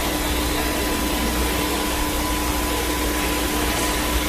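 Steady hiss-like noise with a faint, even hum tone underneath, unchanging throughout.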